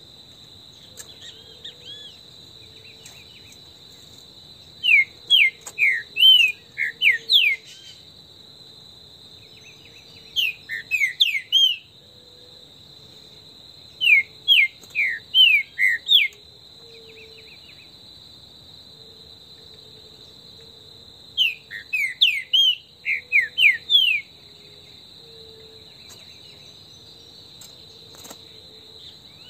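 Green-winged saltator (trinca-ferro) singing four phrases of loud whistled notes, each phrase two to three seconds long, made of quick rising and falling notes. A steady high insect drone runs underneath.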